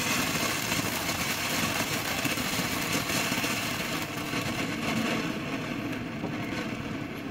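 Black Cat Color Medley small firework fountain spraying sparks with a steady hiss, fading and thinning near the end as the fountain burns out.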